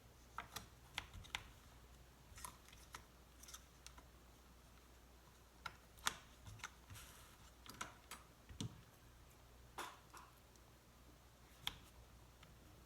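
Faint, irregular clicks and light taps of small hard parts and tools being handled, as in laptop reassembly, over a low steady hum.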